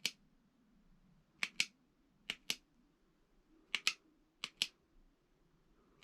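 Push-button switch of an EverBrite mini flashlight clicking in quick pairs (press and release) about five times, cycling it through its light settings.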